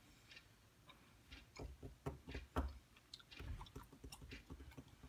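Faint handling noises: scattered light clicks and taps, the loudest about two and a half seconds in.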